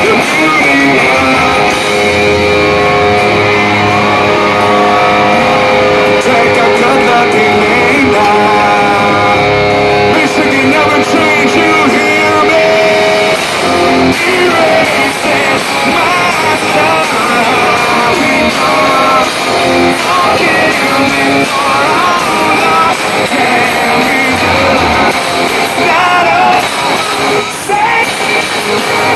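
Live hard rock band playing loud: electric guitars and drums with a singer's vocals. The first half has long held notes, and it turns busier about halfway through.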